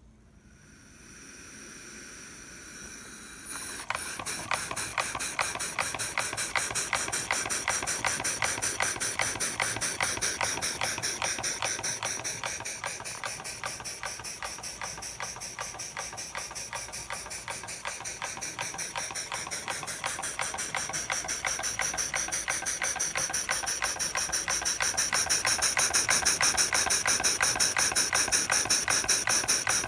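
Stuart No. 9 model steam engine starting up: steam hisses as it is let in, then about four seconds in the engine starts chuffing in a fast, even rhythm, driving a meat grinder through a pulley. The exhaust beats grow louder toward the end.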